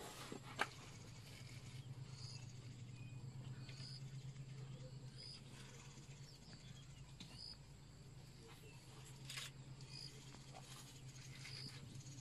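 Quiet bush ambience: short high chirps repeating about every second and a half over a steady low hum, with a sharp click near the start and another later on.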